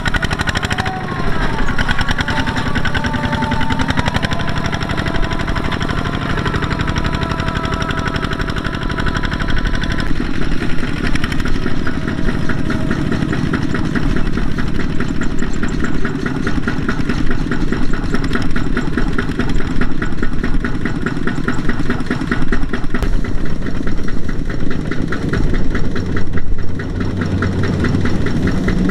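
Single-cylinder diesel engine of a two-wheel walking tractor running under load, with a fast knocking beat as it pulls a loaded trailer through the field. Its pitch wavers during the first ten seconds or so, then it runs more evenly.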